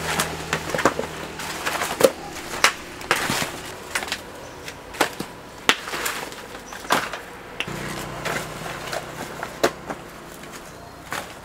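A blade chopping at a coconut: irregular sharp knocks, about one or two a second.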